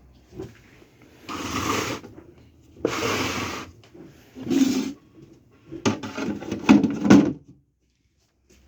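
Handling noises: four short bursts of rubbing and scraping, like something being slid or shifted, the last with sharp clicks and knocks. The sound then cuts off suddenly.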